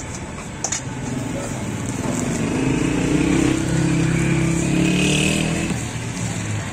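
A motor vehicle engine passing close by, swelling from about two seconds in and fading near the end, over a steady background hiss. A single sharp click comes under a second in.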